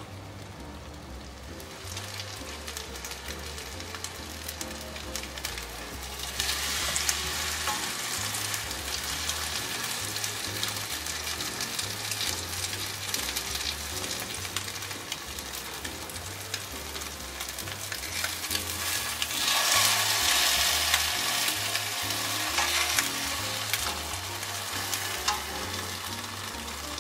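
Thick slice of egg-soaked bread for French toast frying in a nonstick pan, a continuous sizzle. It grows louder about six seconds in and swells again about two-thirds of the way through.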